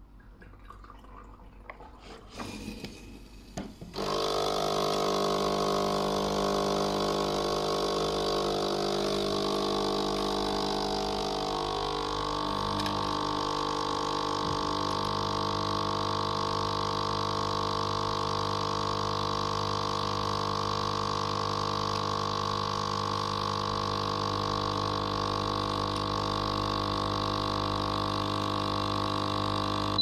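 Noon dual-capsule coffee machine's pump running steadily as it brews a short cup of espresso from a Nespresso-compatible capsule, starting about four seconds in; the tone shifts slightly around twelve seconds in.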